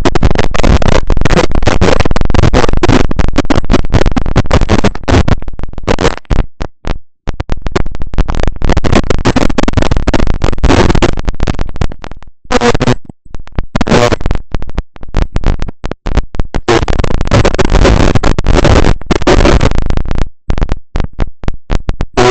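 Loud crackling static from a faulty microphone, cutting in and out with many short silent gaps.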